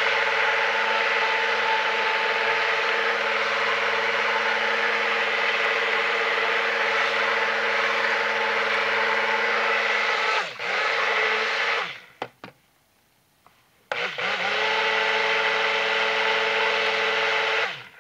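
Handheld stick blender running in soap batter, a steady motor whine over a hiss. It winds down and stops about two-thirds of the way through, stays off for about two seconds, then starts again and runs until it stops near the end.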